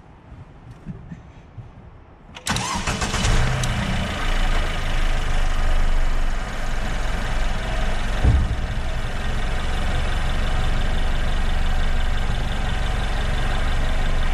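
Car engine started about two and a half seconds in, running a little louder for its first few seconds before settling into a steady idle, with a single thump about eight seconds in.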